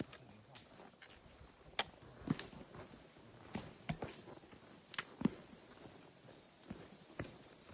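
Footsteps on a rocky forest trail: irregular crunching steps with sharp clicks, about one or two a second.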